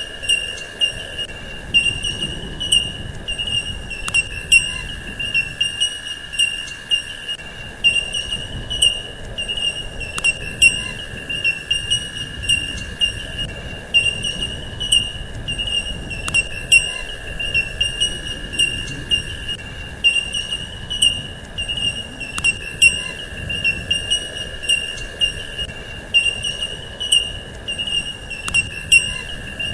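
Continuous high-pitched insect trill with a second steady tone below it, pulsing slightly, and a sharp click about every six seconds.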